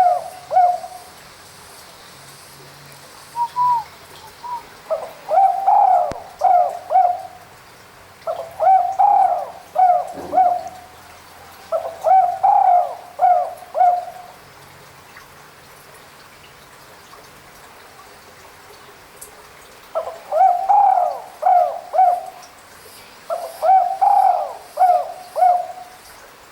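Spotted dove (derkuku/tekukur) cooing: repeated phrases of three or four mellow notes every couple of seconds, with a break of several seconds partway through before the calling resumes.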